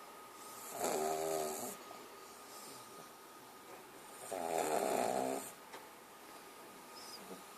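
A sleeping piglet snoring: two drawn-out, pitched snores, each about a second long, some three and a half seconds apart.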